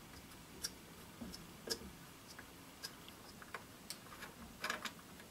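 Faint, irregular light clicks and ticks of an Allen key turning out a main screw in the body of an Ares Striker airsoft sniper rifle, a few coming closer together near the end.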